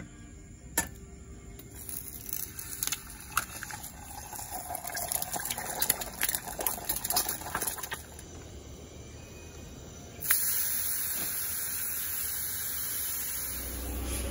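Crinkling and rustling of plastic food wrap being handled, with a few sharp clicks. About ten seconds in, a steady frying sizzle from a hot, greased steel pan on a butane camp stove starts suddenly.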